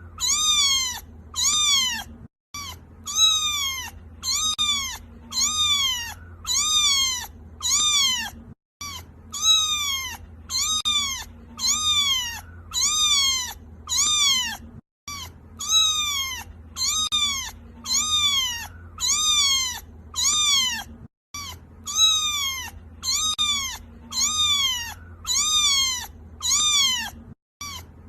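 Kitten crying: high-pitched meows repeating about two a second, each call rising then falling in pitch. The run of calls breaks off briefly about every six seconds and starts again.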